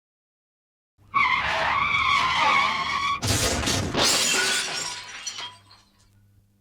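Car tyres screeching in a wavering squeal for about two seconds, then a sudden crash with glass shattering. Debris tinkles and settles as it fades over the next couple of seconds.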